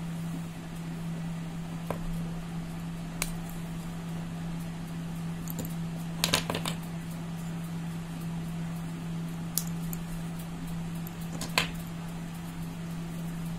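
Pieces of roasted brown clay snapped apart by hand: a handful of short, sharp, dry snaps at irregular intervals, with a quick cluster of them about six seconds in. A steady low hum sits underneath.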